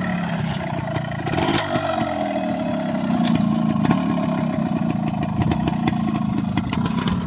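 Yamaha RX100 motorcycle's single-cylinder two-stroke engine running with the revs rising and falling as the bike is brought down a steep rocky trail, with scattered clattering knocks.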